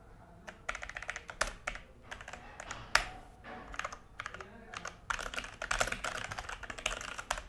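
Fast typing on a Logitech G413 mechanical keyboard: runs of key clicks broken by short pauses, with one louder key strike about three seconds in.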